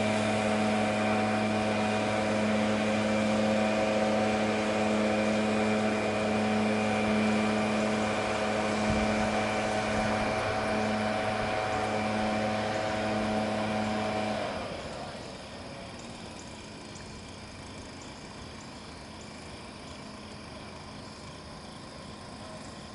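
Engine-driven blower pushing a canoe, running at a steady pitch, then winding down and stopping about fifteen seconds in, leaving a fainter even hiss.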